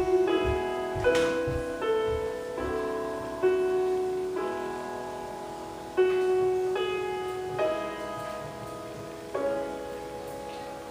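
Slow piano music: sustained notes and chords that change about once a second, with a few soft low thuds near the start.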